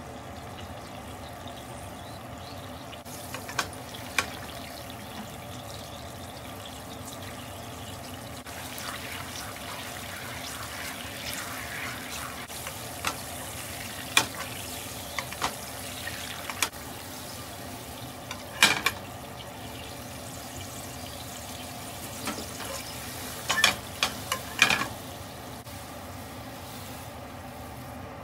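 Dark sauce simmering and reducing in a frying pan: a steady bubbling with a light sizzle, denser crackling for several seconds in the middle, and sharp pops and spits now and then. A steady hum runs underneath.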